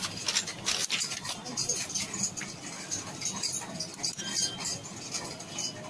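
Handling noise from a smartwatch being turned over in the hands: a scatter of small light clicks and taps.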